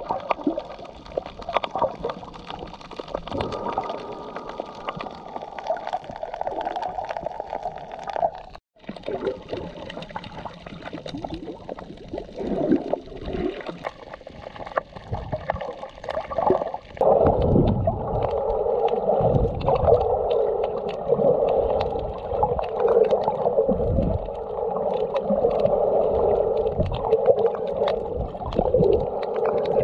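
Underwater sound picked up by a camera in a waterproof housing: muffled gurgling and bubbling water with many small clicks. It drops out for an instant about a third of the way in, and grows louder from a little past halfway.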